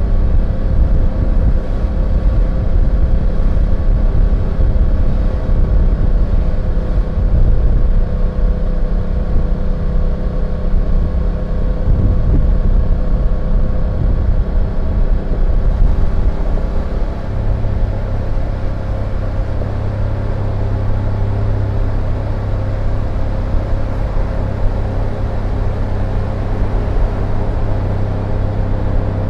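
BMW F850GS parallel-twin engine running at steady revs, with rumbling low noise; about halfway through the sound settles into a steadier low hum.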